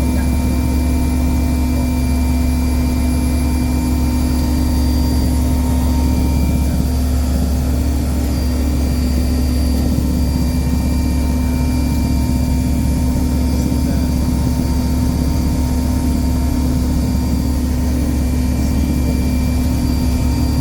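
Heavy marine diesel engine running steadily under load, a loud, unbroken deep drone with a constant hum above it, as of a tug towing.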